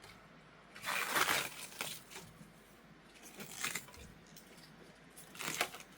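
A cabbage leaf being torn and peeled off the head: one loud crisp tearing crackle about a second in, then a few softer crackles later.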